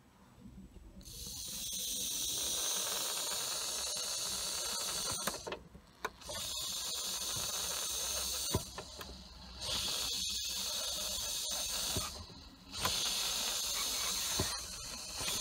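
Air hissing out of a leaking boost pipe joint as the intake is pressurised by mouth through a boost leak tester plug. It comes in four long blows with short pauses between them. The leak is at a boost pipe that does not seal on this connection.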